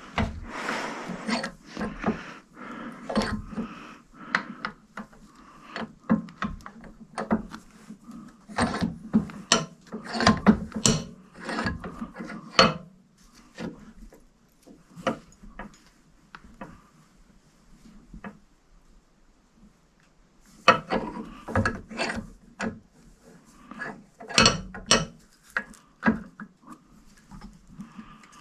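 Irregular knocks and clatter of tools and metal parts being handled at a workbench, with a quiet stretch in the middle before the knocking picks up again.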